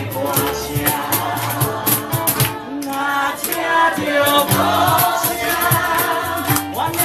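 A ukulele ensemble strumming steadily while a group of voices sings a song together over a bass line.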